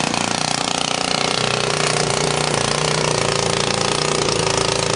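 Small glow-fuel model airplane engine running at a steady buzz while the float plane is held on the ground.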